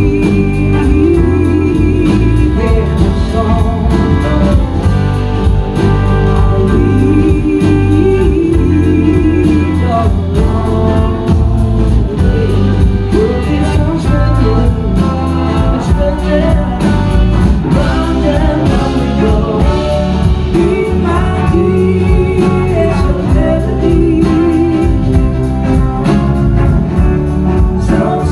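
Loud live blues-rock band playing: electric guitars, bass and drums with a woman singing.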